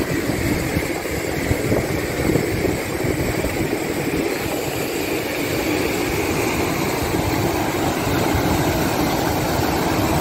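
Steady rush of turbulent river water churning and splashing, with water pouring through the outlets of a low weir.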